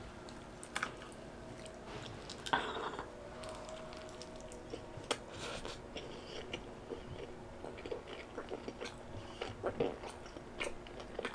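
Close-miked chewing and mouth sounds of a person eating pizza toppings, prosciutto and ricotta, picked off by hand: many short wet clicks scattered throughout, with a louder bite about two and a half seconds in.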